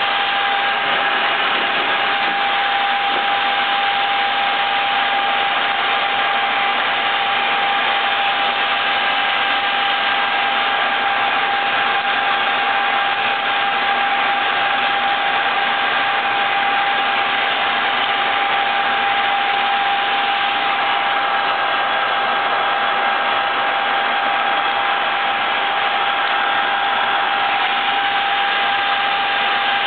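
Ex-Soviet Stanko horizontal boring mill running, its boring bar turning in the part to machine out a weld-repaired bore. The machine makes a steady noise with an even high whine over it.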